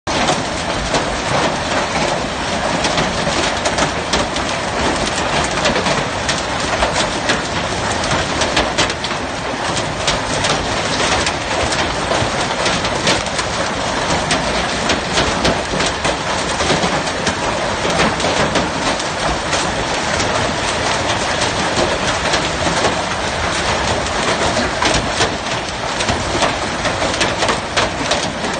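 Hailstones pelting down on cars and the ground: a loud, steady clatter of countless small impacts.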